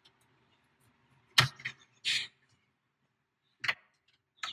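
Plastic-cased camera module and its mounting bracket knocking and clicking while being handled and fitted into the dash: a few sharp clicks, the loudest about a second and a half in, with a short scrape just after.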